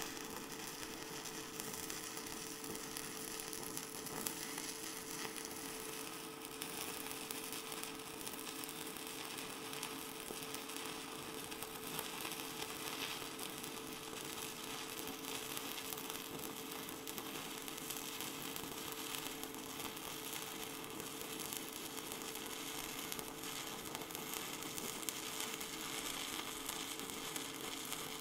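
Stick-welding arc burning steadily as a Blue Demon ESt (Castarc) nickel-free cast iron electrode runs a bead on cast iron, with a steady hum underneath.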